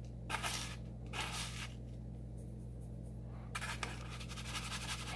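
A spoon stirring a dry spice rub in a bowl: a few short, soft scrapes at uneven intervals, over a steady low electrical hum.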